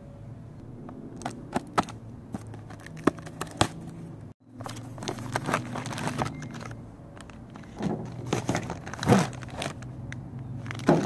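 Handling sounds from a cardboard parts box being opened, with clicks and scrapes of the flaps, then a run of plastic-bag crinkling as bagged replacement crankcase vent hoses are pulled out. The sound cuts out briefly about four seconds in.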